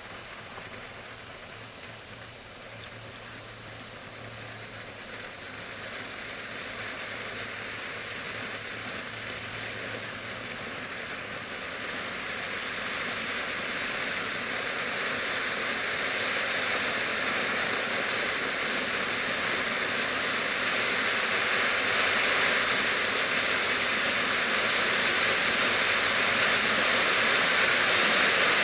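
PXF206 Volcano spark-fountain firework burning with a steady rushing hiss that grows gradually louder.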